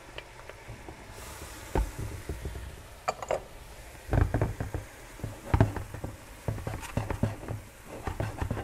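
Sliced mushrooms, green onions and garlic sizzling in butter in a skillet, with a spoon knocking and scraping against the pan at irregular intervals as they are stirred.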